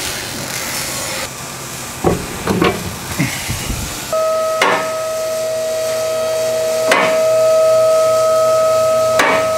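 A brief hiss, then a few thumps as a removed wheel and tyre are handled on the shop floor; from about four seconds in, a two-post vehicle lift's hydraulic pump whines steadily as it raises the truck, with a sharp click three times.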